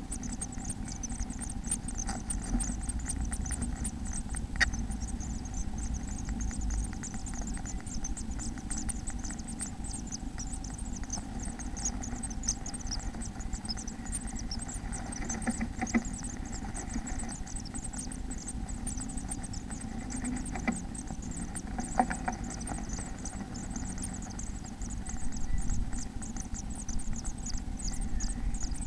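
Rapid, thin, high-pitched cheeping from inside a bird nest box over a steady low electrical hum, with an occasional sharp knock.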